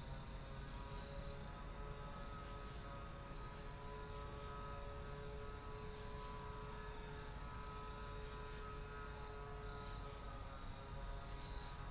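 Distant engine drone: a steady low hum with several faint held tones over quiet woodland ambience.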